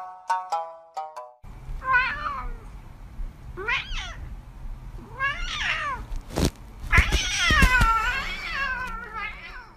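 A cat meowing five times, each call rising and falling in pitch, the longest and loudest a drawn-out meow a little past the middle. A short run of plucked music notes opens it, and a few soft thumps fall around the middle.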